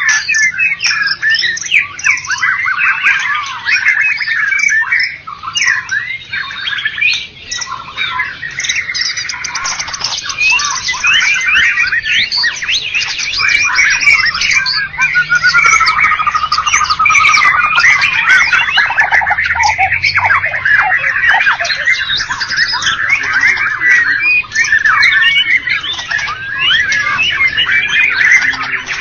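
White-rumped shama (murai batu) singing without pause: a fast, varied stream of chirps, rattles and sliding whistles, typical of a contest-winning songbird in full song.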